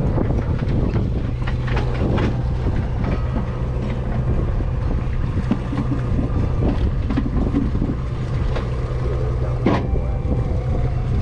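Party boat's engine running with a steady low hum, with wind on the microphone and scattered knocks and clatter, one louder knock near the end.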